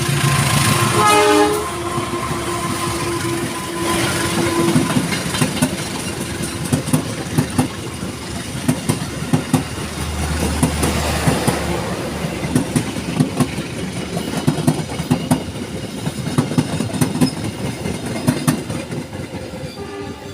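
A train passing over rail joints and a turnout. Its horn sounds loudly at the start, then the wheels clack sharply and repeatedly over the joints and switch.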